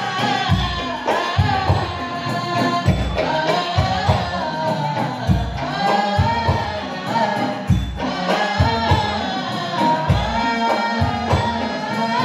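Music with a singer, acoustic guitar and keyboard over a steady beat.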